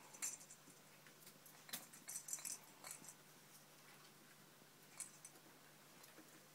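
Faint scattered clicks and light rustles of pet rats scurrying and nosing among plastic toys and paper on the floor, with a few small clusters of taps.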